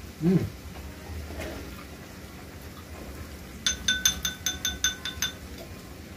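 A quick run of about ten evenly spaced ringing clinks, a utensil tapping on a dish, lasting under two seconds from a little past the middle. A brief voice sound just after the start.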